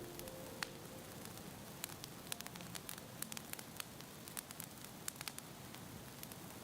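Wood fire crackling, with frequent sharp, irregular pops over a steady hiss. Faint music tones fade out in the first half-second.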